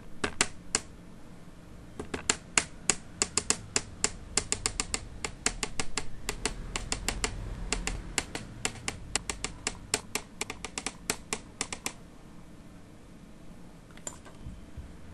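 A fast, irregular run of sharp clicks or taps, like typing, which stops about twelve seconds in and leaves a faint low hum.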